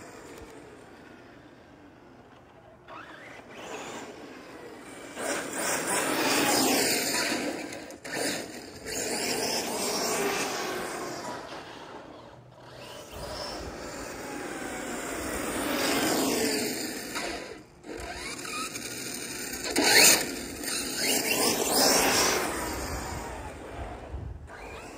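Electric 1/8-scale Hot Bodies RC car's motor whining and its tyres hissing on asphalt as it speeds up, passes and drives off again, twice, the whine rising and falling in pitch with speed. A brief sharp crack about twenty seconds in is the loudest moment.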